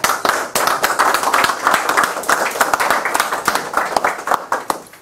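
A small audience applauding, the clapping fading away near the end.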